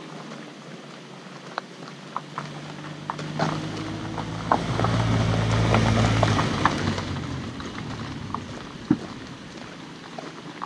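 Footsteps on gravel, with a car driving slowly past: its engine hum swells from about two seconds in, is loudest around five to six seconds, then fades.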